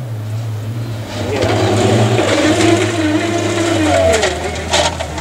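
Rally car engine revving hard as it approaches on a gravel stage, growing louder with its pitch climbing, then dropping about four seconds in as the driver lifts or changes gear. A couple of short sharp cracks come near the end.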